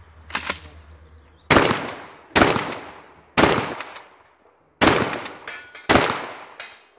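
Five gunshots from a shouldered long gun fired roughly a second apart, each with a long fading echo.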